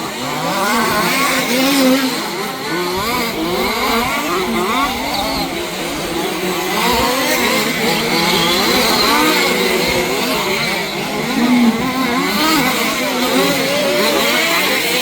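Several 1/5-scale off-road RC cars' small two-stroke petrol engines racing at once, overlapping and revving up and down as the cars accelerate and back off around the track.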